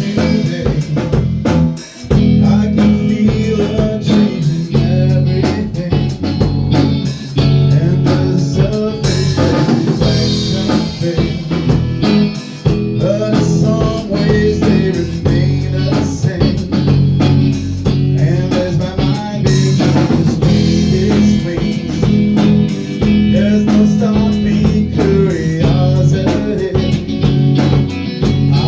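Rock band playing an instrumental passage: guitar, bass guitar and drum kit together, in a bluesy style, with a brief drop about two seconds in.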